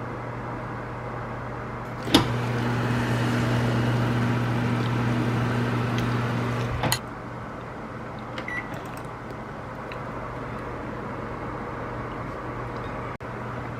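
Countertop oven or microwave running with a steady electric hum. About two seconds in a click brings a louder, fuller hum, which stops with another click about five seconds later.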